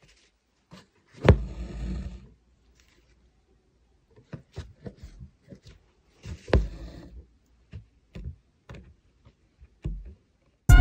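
Handling sounds of a wooden embroidery hoop and its fabric: a sharp tap about a second in and another about six seconds in, each followed by a short rustle, with scattered soft ticks between.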